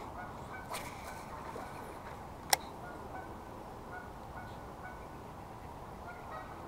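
Faint, intermittent honking of geese, with a single sharp click about two and a half seconds in.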